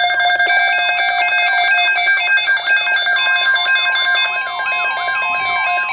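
Several NOAA weather radios sounding their alert alarms at once for a Severe Thunderstorm Watch: overlapping repeating beeps and rising-and-falling warbles over steady tones. A further steady tone joins about three seconds in.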